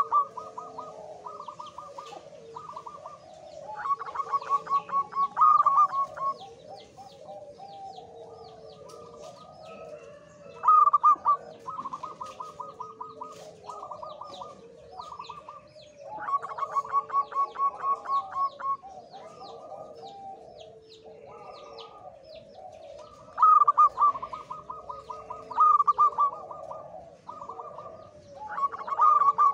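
Male zebra dove (perkutut), said to be in strong breeding condition, cooing. It gives repeated phrases of quick, evenly spaced staccato notes every few seconds, with faint chirping of small birds higher up behind it.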